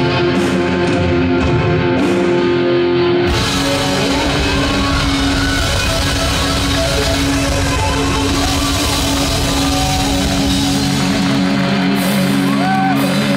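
Live rock band playing loud, with two electric guitars and drums. About three seconds in, the playing shifts to a fuller, heavier passage with more bass.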